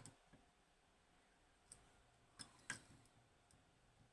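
A handful of faint clicks from a lock pick working the pins of a DOM IX 6KG lock during single-pin picking, the loudest pair about two and a half seconds in.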